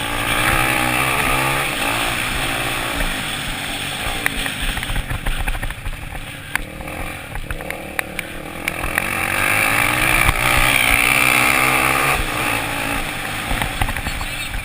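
Off-road racing motorcycles running on a dirt track, engines revving up and down through the gears, their pitch rising and falling as they pass. The sound dips in the middle and swells loudest a little over two-thirds of the way in.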